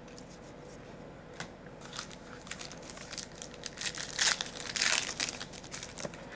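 A trading-card pack's wrapper being torn open and crumpled: a dense run of crinkling crackles starting about two seconds in and lasting several seconds, loudest near the middle, over a faint steady hum.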